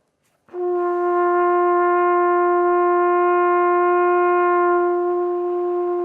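Trumpet playing one long, steady held note as a warm-down exercise for the lips. It starts about half a second in and grows softer near the end, its upper overtones fading.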